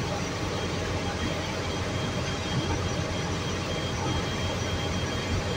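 Steady rumble of a city bus heard from inside the passenger cabin, with a few faint steady tones over it.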